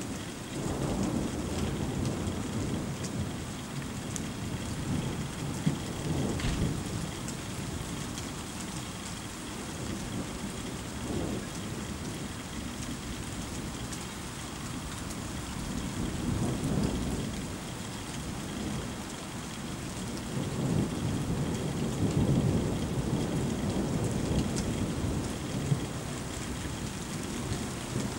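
Thunder rolling and rumbling low in several long swells over steady rain, the loudest rumble about three quarters of the way in.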